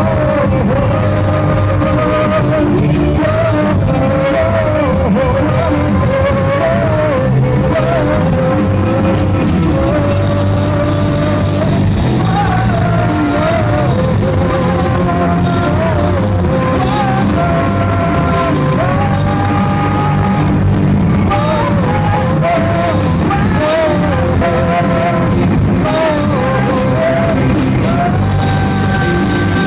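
A loud live rock band playing: electric guitars, bass guitar and drum kit, with a wavering lead melody on top.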